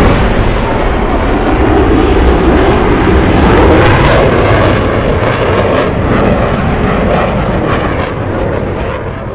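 R/C model airplane in flight, its motor heard through heavy rumbling wind noise on the microphone. The sound fades away near the end.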